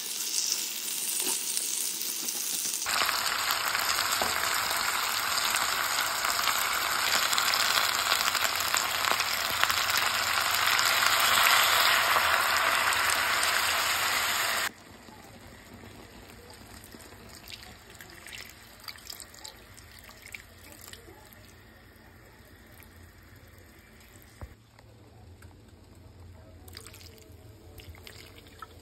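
Pork hocks sizzling in a hot pan, then a loud, steady rush of sizzling as liquid is poured over them, which cuts off suddenly about halfway through. After that the pan is much quieter, with a faint sizzle and a few small clicks.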